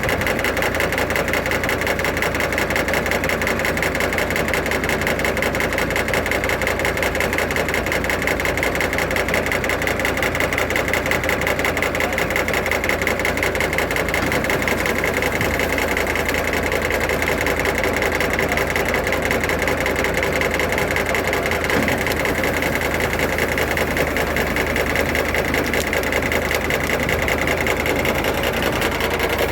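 Steady engine running with the machinery of an Allis-Chalmers Roto-Baler at work: a fast, even mechanical rhythm that keeps up without change.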